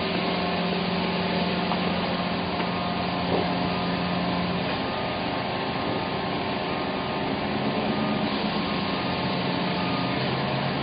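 Yamaha F225 four-stroke V6 outboard motor running steadily. Its low hum shifts slightly about halfway through.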